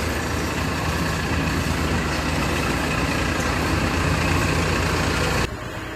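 Coconut shell charcoal-making (carbonization) machine running, a steady mechanical din with a low hum underneath. About five and a half seconds in it drops abruptly to a quieter hum.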